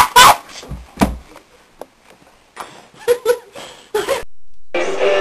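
A loud shout breaks off at the start, followed by a dull thump about a second in and a few short vocal sounds in a small room. Music begins near the end.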